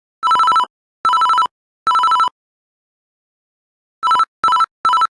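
Panasonic X300 mobile phone ringtone played back as a MIDI file: three short electronic trills that rapidly alternate between two high tones, a pause of about two seconds, then three shorter trills in quicker succession, like a telephone ring.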